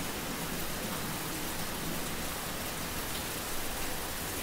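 Steady, even background hiss with no other sound.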